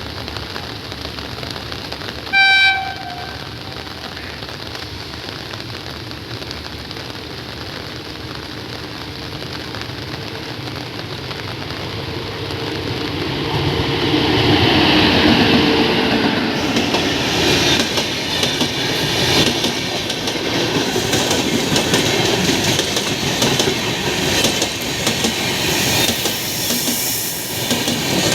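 A short train-horn blast about two seconds in, over the steady hiss of heavy rain. From about halfway, a WAP-7 electric locomotive-hauled express train comes close and passes, growing louder, with the rhythmic clickety-clack of its coach wheels over rail joints.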